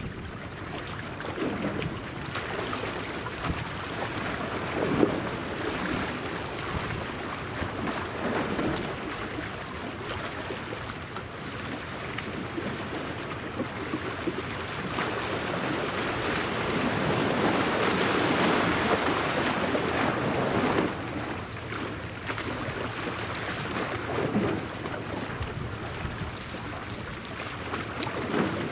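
Steady rushing noise of the helicopter destroyer Kaga's engines as the ship moves and turns across the water, swelling for a few seconds in the middle. Wind buffets the microphone and water laps.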